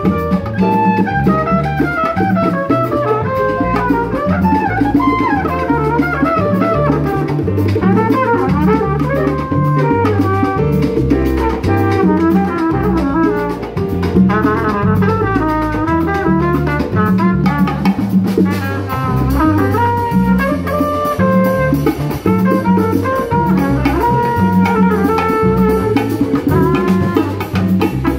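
Live salsa band playing an instrumental passage: trumpet and trombone lines over drum kit and percussion.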